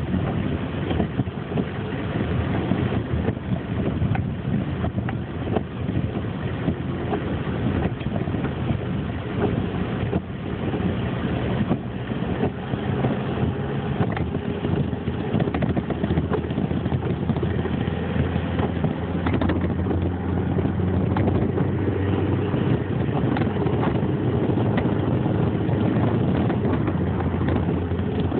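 A vehicle's engine running, with a steady rumble of road and wind noise and scattered small clicks and knocks.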